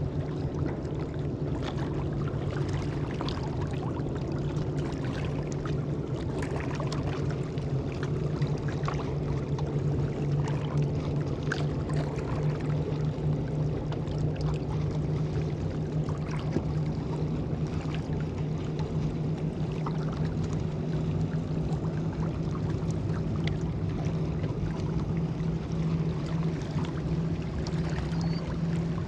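Steady low drone of a boat engine out on the water, with water lapping and small splashes at the rocky shoreline.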